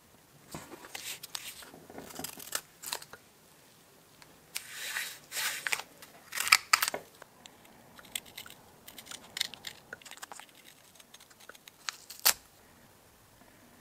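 Green masking tape being pulled off its roll and laid over a cast aluminium housing, with rasping peels and then sharp scissor snips cutting it, the loudest just over halfway. Lighter rustles of the tape being pressed and trimmed follow, with one sharp click near the end.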